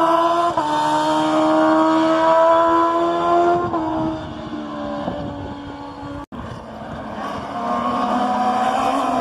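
High-revving race car engine, a Suzuki GSX-R1000 inline-four motorcycle engine, accelerating hard away uphill. The revs climb steadily and drop briefly with upshifts about half a second and three and a half seconds in, then the sound fades with distance. After a brief dropout, the engines of several more race cars grow louder as they approach.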